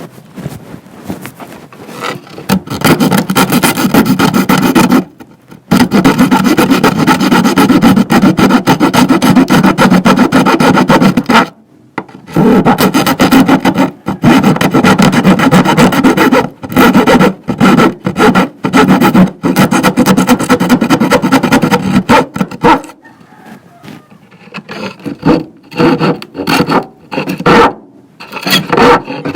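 Power saw cutting plywood, running in long runs with short pauses, then in shorter stop-and-start bursts over the last few seconds.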